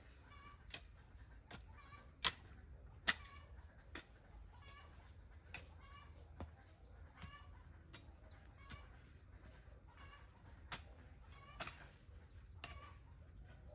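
Sharp taps or knocks about once a second, the loudest two about two and three seconds in, over soft, repeated clucking of chickens and two faint, steady high tones.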